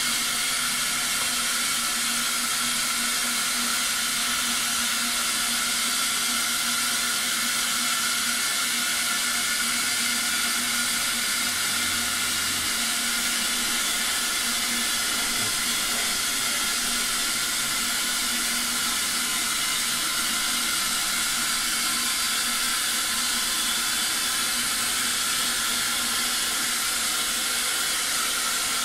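Steady hiss with a faint hum beneath it.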